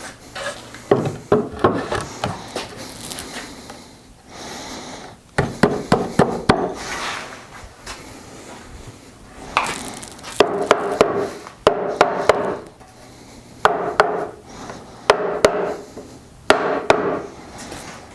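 Hand tools working wood: sharp knocks and short rough rubbing strokes, settling in the second half into a rhythm of about one stroke a second.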